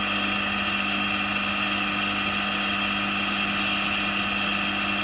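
Milling machine running steadily while drilling a bolt hole in a steel smoke box, a constant hum with a high steady whine.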